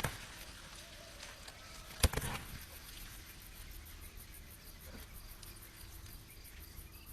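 Outdoor ambience with faint insects chirping steadily, and one sharp knock about two seconds in.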